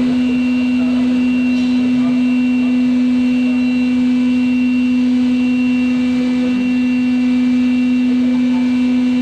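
A lathe running steadily, giving a constant hum with a faint high whine that comes and goes.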